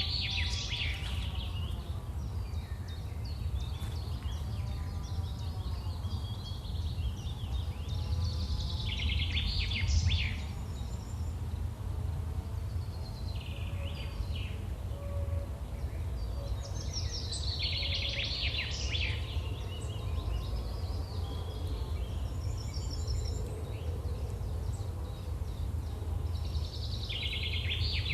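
Countryside ambience: a songbird sings short, busy phrases that come back about every nine seconds, over a steady low rumble.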